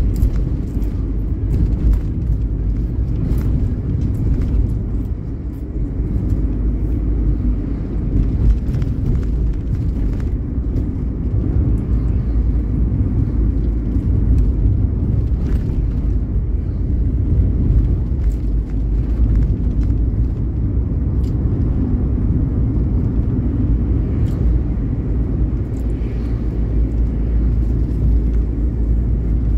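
Steady low rumble of a vehicle driving along a road, tyre and engine noise, with scattered faint clicks and knocks.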